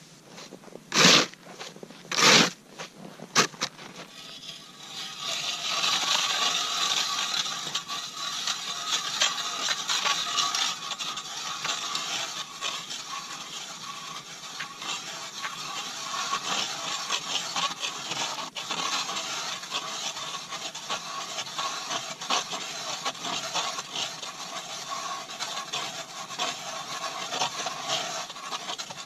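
Three loud, short hits in the first few seconds. Then a manual Mora ice auger is cranked through lake ice: a steady, grainy scraping and grinding as the blades cut, with small uneven strokes from the turning.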